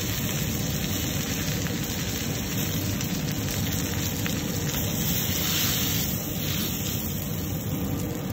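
Lamb leg steaks and butter sizzling in a frying pan over a gas flame: a steady hiss and crackle.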